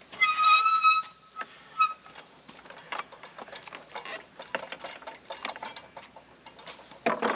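Steel parts of a manual tire changer clicking, tapping and scraping as the wheel is seated and the long steel bar is handled, ending in a loud metal clank. Near the start there is a high squeal of about a second, with a short repeat just after.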